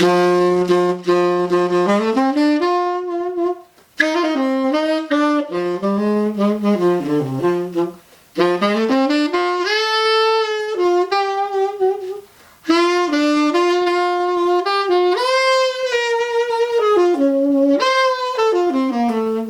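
Buescher Aristocrat tenor saxophone played solo: a jazz-style line of moving notes in three or four phrases with short breath gaps between them. It is testing an old I.O.A. reed that plays a little hard.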